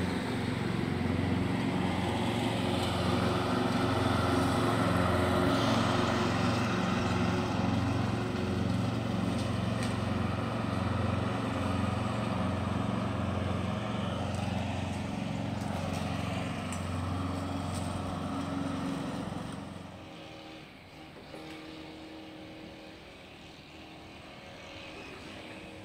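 A motor running steadily with a low hum, dropping away to a much fainter hum about twenty seconds in.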